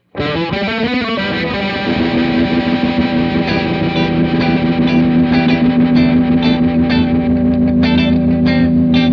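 Two electric guitars played through a Fender Pinwheel rotary speaker (Leslie) emulator pedal, the notes wavering in pitch at the start. A held chord then rings steadily under rhythmic strummed chords that come in a few seconds in.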